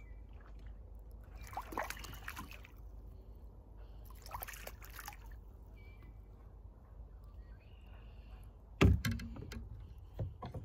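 Water sloshing and dripping around a kayak, with two short swishes of paddle strokes. About nine seconds in comes a sharp knock, the loudest sound, followed by a little clatter.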